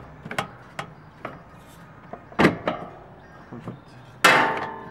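Light knocks and clicks of hand tools and parts against the underbody while the plastic under-engine cover is refitted, with a sharper knock about halfway and a loud metallic clank near the end that rings briefly.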